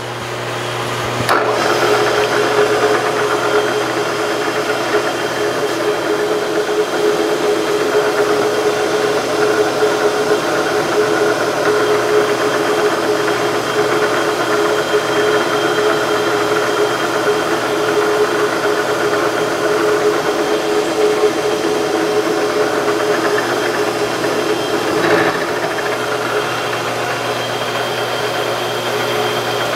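Vertical milling machine's end mill taking a facing cut across the top of a small Woodruff key: a steady cutting sound over an even hum from the spindle. The cut comes up to full level about a second and a half in.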